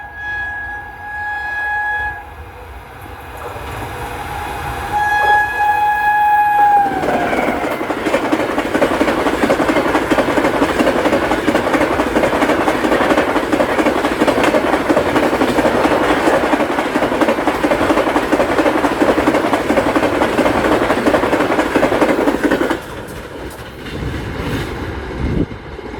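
WAP7 electric locomotive's horn sounding in two blasts, the second falling in pitch as it ends about seven seconds in. Then the express passes at speed: a loud, steady rush of wheels and coaches for about fifteen seconds, dropping to a lower rumble near the end.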